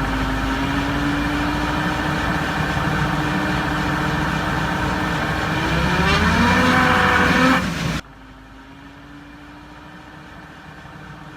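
Vehicle differential whining in a steady tone over engine and road noise, the whine rising in pitch about six to seven seconds in as speed picks up; the noise comes from pitting and erosion on the gear tooth flanks. About eight seconds in it cuts off suddenly to a much quieter steady hum with the whine faint.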